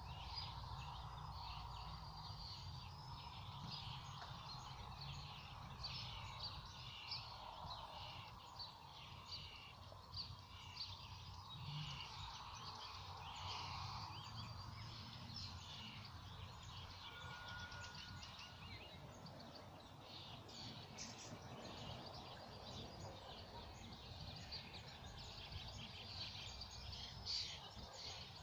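Several songbirds singing at once: a continuous run of short chirps and trills over a low steady rumble.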